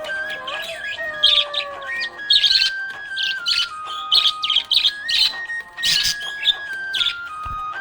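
Budgies chirping and warbling in quick, busy bursts over background music with a slow melody of long held notes.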